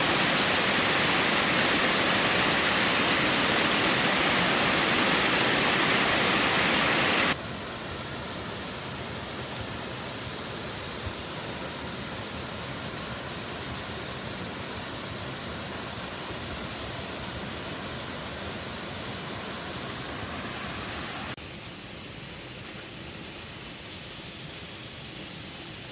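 Steady rushing water noise, hissing and even. It drops abruptly in level about seven seconds in and again at about 21 seconds.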